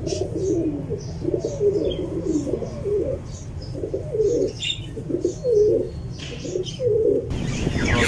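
Fantail pigeons cooing over and over in low, wavering calls, with short high chirps from other birds above them. Near the end the sound cuts abruptly to louder, busier background noise.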